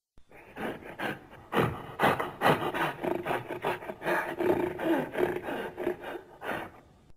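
A rough, rasping, growl-like sound effect made of a long string of short bursts, starting abruptly and stopping abruptly.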